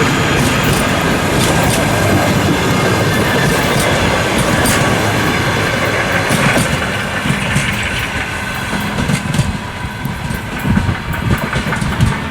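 Suburban train behind a 2TE116 diesel locomotive, made up of four passenger coaches, rolling past with its wheels clacking over rail joints. The sound is dense and steady at first, then thins after about seven seconds into uneven knocks.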